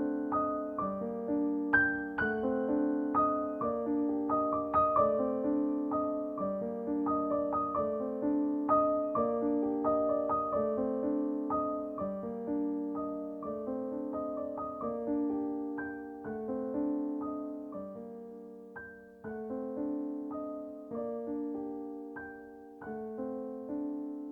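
Background music: a gentle solo piano piece, a steady run of soft notes that thins out and fades near the end.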